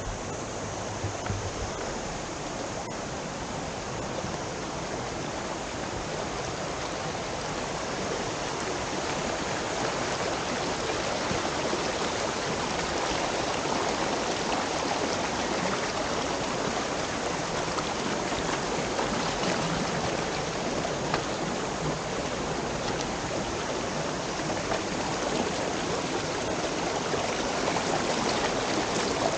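Stream water rushing steadily. It grows a little louder over the first ten seconds or so, then holds even.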